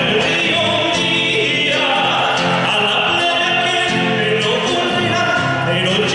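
A male singer performing a folk song with instrumental accompaniment, holding long sung notes.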